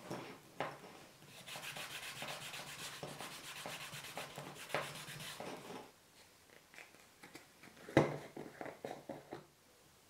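Leather strap edge being burnished: quick, even back-and-forth rubbing for about four seconds. About eight seconds in comes a sharp knock, followed by a few lighter taps.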